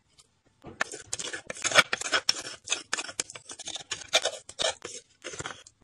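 Pounded fresh maize being scraped out of a mortar, a quick, irregular run of rasping scrapes.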